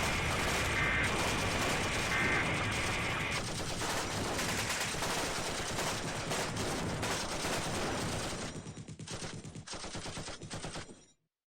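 Harsh crackling static noise from a broadcast signing off, with a short two-tone EAS data burst about two seconds in, the end of the end-of-message signal. The static cuts off abruptly near the end.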